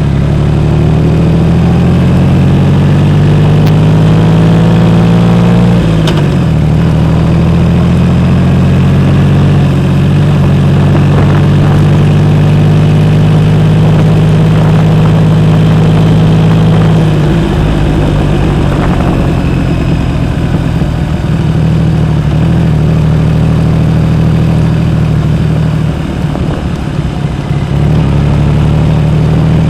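2012 Triumph Rocket 3 Roadster's 2.3-litre three-cylinder engine running through a Jardine exhaust, a loud, steady, deep note. The engine note shifts about six seconds in and again around the middle, and the sound briefly drops in level near the end.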